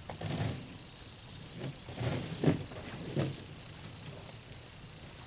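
Insects chirping steadily in a high, evenly pulsing trill, with a few soft knocks and handling noises; the loudest knock comes about two and a half seconds in.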